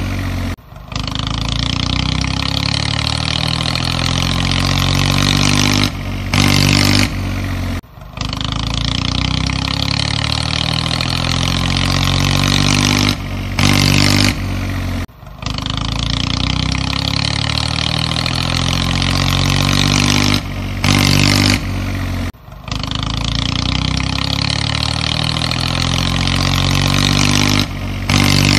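Dubbed tractor engine sound effect, running steadily with a low rumble, looped so that the same stretch repeats about every seven seconds with a brief dropout at each join.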